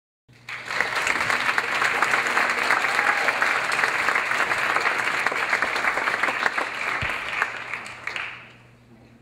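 Audience applauding in a hall: a dense, steady clapping that starts about half a second in and dies away about eight to nine seconds in.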